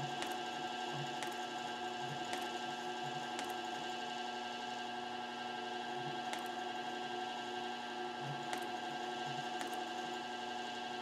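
Pfaff 1245 industrial walking-foot sewing machine stitching leather very slowly, stitch by stitch, with a knock at each stitch about once a second and a few longer pauses. Under it runs the steady hum of its running clutch motor.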